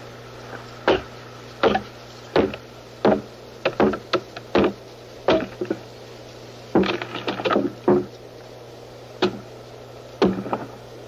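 Repeated blows driving wedges into a black spruce driftwood log to split it: sharp wooden knocks about every 0.7 s, with a short pause about halfway and a quick flurry of strikes just after. A steady low hum runs underneath.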